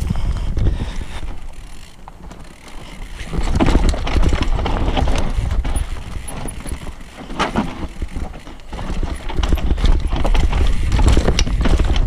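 Mountain bike descending a rough, rocky singletrack: a steady run of knocks and rattles as the tyres and frame hit rocks and roots, over tyre and ground rumble, easing briefly twice.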